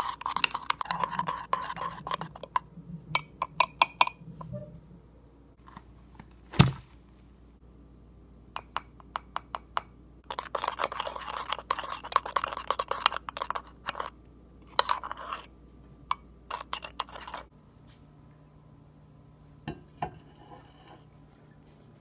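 A utensil stirring mug brownie batter in a ceramic mug, scraping and clinking against the sides in two spells of quick strokes, with one loud knock between them.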